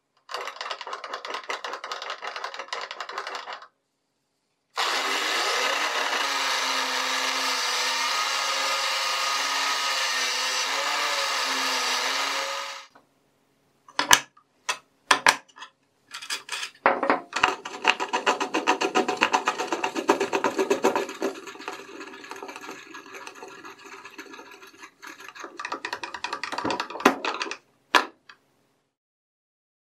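Angle grinder motor running steadily with a constant hum, spinning a wooden dowel in a homemade lathe jig. Shorter stretches of rubbing and scraping come before and after. A few sharp metal clicks come between them, as a wrench works the tailstock bolt.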